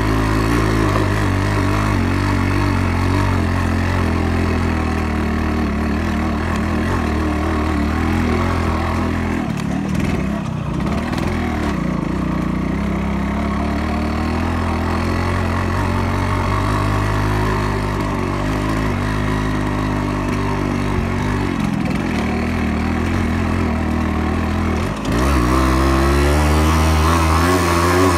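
Yamaha RX-100's two-stroke single-cylinder engine running under way on the motorcycle. The revs dip about ten seconds in and pick up again, then drop and rise once more near the end.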